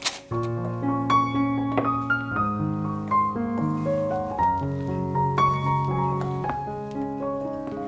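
Background music: a piano playing a gentle melody over chords.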